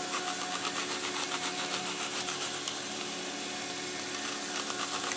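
Serrated knife sawing back and forth through a raw onion, slicing off rings: a fast rasping run of short strokes that eases off in the middle and picks up again near the end, over a steady hum.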